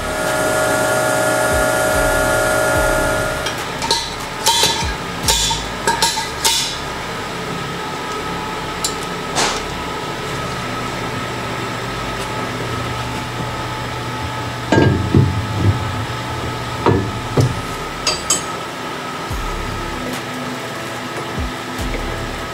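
Metal knocks and clanks of an engine block being set up on a resurfacing machine, over a steady machine hum. For about the first three seconds a steady machine tone with hiss sounds, then the knocks come in scattered clusters.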